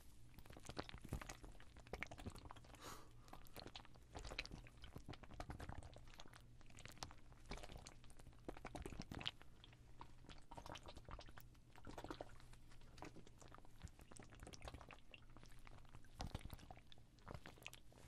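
Water-filled fabric ice bag squeezed and kneaded close to the microphone, giving soft, irregular bubbling and crackling.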